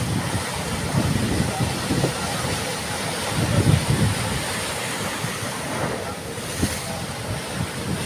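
Sea surf washing onto the shore, with strong wind buffeting the microphone in uneven low gusts.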